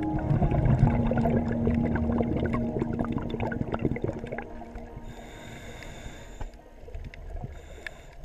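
Underwater sound picked up through a camera housing: dense fine crackling and clicking over a low bubbling rush, typical of scuba exhaust bubbles and reef crackle, growing quieter towards the end. Background music fades out under it in the first seconds.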